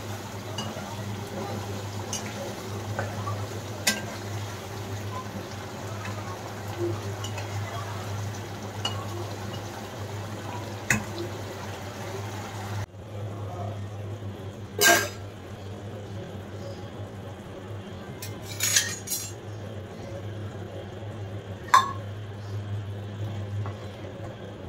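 A steel spatula clinks and scrapes now and then against a kadai of simmering egg curry, with sharp clinks about 4, 11, 15, 19 and 22 seconds in. Under it run a steady low hum and the noise of the bubbling pan.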